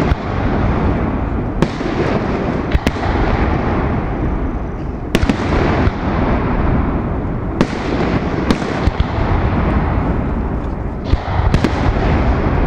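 Fireworks display: aerial shells bursting overhead, with several sharp bangs a second or more apart over a continuous rumbling noise of the display.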